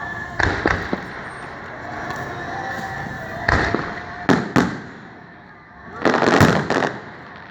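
Aerial fireworks bursting: a few sharp bangs in quick groups, then a dense run of pops about six seconds in.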